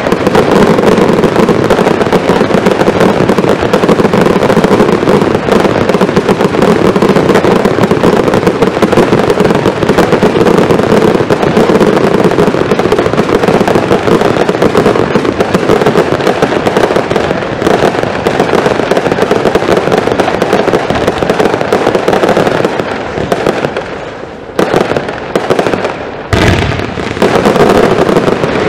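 Zena fireworks fired from a row of ground tubes in a dense barrage: a continuous rapid volley of bangs and crackles with no gaps. Near the end it thins out to separate loud bangs with short pauses between them.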